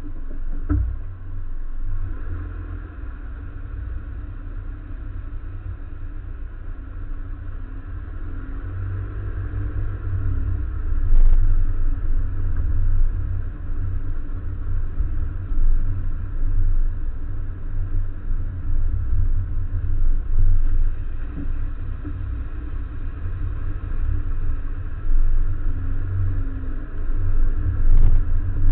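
Road noise from a moving car recorded by a camera mounted beside a wheel: tyre roar and a heavy, fluctuating low rumble of wind buffeting the microphone. It grows louder over the first ten seconds or so as the car picks up speed.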